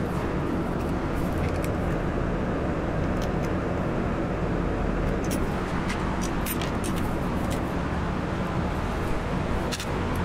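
Steady background rumble with scattered light clicks, a few every second or two, from small metal parts and hand tools being handled while the 3D printer's X-axis is taken apart.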